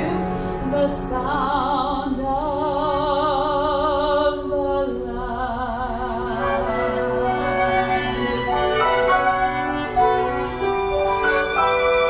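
Mezzo-soprano singing with wide vibrato over a chamber ensemble of bowed strings, woodwinds and piano, holding long notes in a classical art song.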